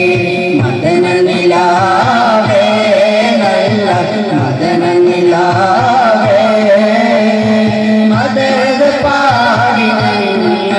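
A group of men singing a qawwali together through microphones, with long ornamented sung lines over a steady held drone and a rhythmic beat underneath.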